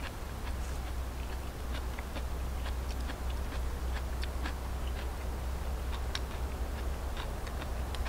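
Eating sounds: a wooden fork clicking and scraping on a wooden plate, in irregular light clicks several times a second, over a steady low rumble.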